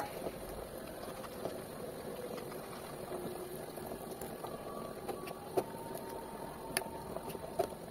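Vegetable curry boiling in a steel pot on a gas burner, a steady bubbling hiss. A few sharp clinks of a steel spoon against the pot come in the second half as a liquid is poured in and stirred.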